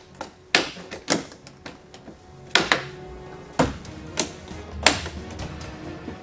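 Sharp clicks and knocks from the latches and shell of a large rugged plastic transport case being unfastened and handled, about seven in all with the loudest near the end, over background music.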